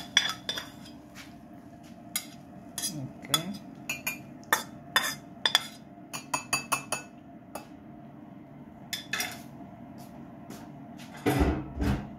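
Metal spatula scraping and clinking against a frying pan and a ceramic bowl as cooked tomato is tipped out of the pan. The sound is a run of sharp clinks, some ringing briefly, bunched most thickly a few seconds in. Near the end there is a louder, dull, low knock.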